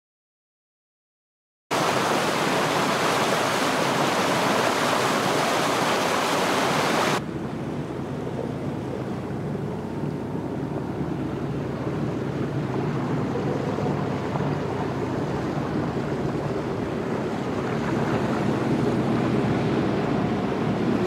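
Water rushing and splashing along a sailboat's hull and wake as it moves through calm water, with some wind on the microphone. It starts after about two seconds of silence, is a loud hiss for about five seconds, then drops to a quieter, lower rush.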